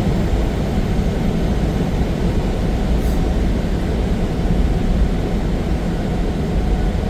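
Semi-truck running at highway speed, heard from inside the cab: a steady low drone of engine and tyre noise.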